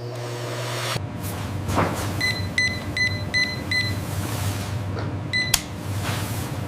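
Electronic beeps from factory equipment over a steady machine hum: a quick run of short, high beeps about two to four seconds in, then a single beep with a sharp click about five and a half seconds in.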